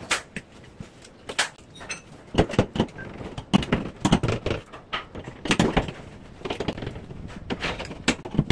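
Irregular knocks, taps and clatters of hand work at a tiled bathroom wall, coming in quick clusters with short gaps between.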